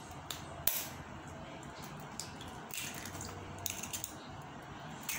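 Metal spoon tapping and cracking a hen's egg, then the shell pulled apart by hand: a few short, sharp clicks spread out, the strongest about a second in.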